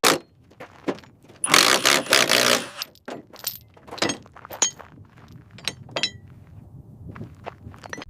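Metal parts knocking, clinking and scraping: a sharp knock at the start, a loud harsh crunching scrape lasting about a second shortly after, then a string of separate sharp knocks and clinks, some ringing briefly.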